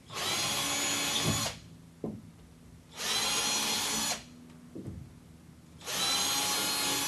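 Cordless battery drill with a 5mm bit drilling three holes into the wall, in three short runs of about a second or so each with short pauses between.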